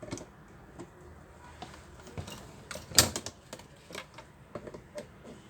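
Irregular clicks and light knocks of the spice grinder's parts being handled and worked on during disassembly, with one sharper knock about three seconds in.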